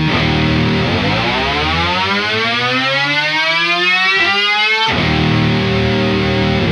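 Distorted electric bass through a Boss PS-6 Harmonist pitch shifter used as a whammy-style dive bomb. A held note bends smoothly upward over about four and a half seconds, then snaps back down to its original pitch and rings on.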